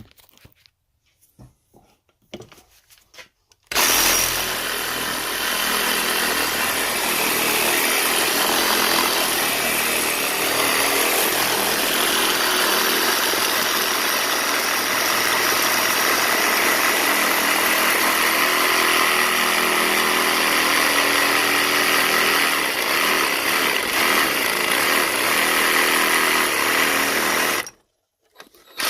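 Reciprocating saw (Sawzall) with a metal-cutting blade, sawing through the plastic housing of a fridge water filter held in a vise. It starts about four seconds in after a few faint handling knocks, runs steadily for over twenty seconds, and cuts off suddenly near the end.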